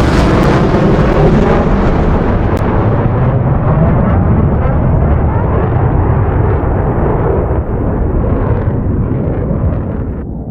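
A loud, explosion-like rumble that follows a sudden blast just before and holds steady for several seconds, then dies away near the end.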